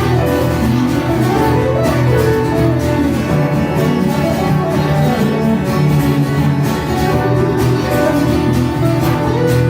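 Live band music: guitars and other string instruments playing a country-style tune.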